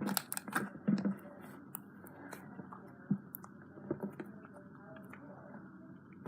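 Putty slime being squeezed and stretched by hand, giving soft sticky squishes and scattered small clicks and pops, densest in the first second.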